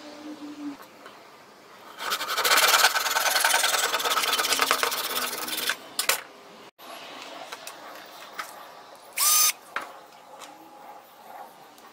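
Power drill boring into a small wooden block held in a machine vise, running for about four seconds with a dense chattering buzz. Near the end a second short burst as the drill briefly spins up, with light clicks and handling noise in between.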